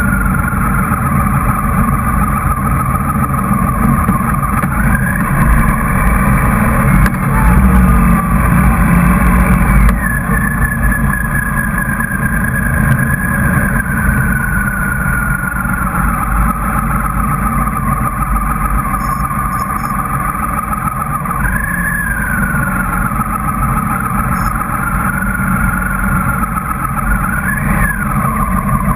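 Motorcycle engine running under way, heard from a camera mounted on the bike with a steady rumble of wind and road noise. Its whine rises and falls several times with the throttle, dropping sharply about ten seconds in.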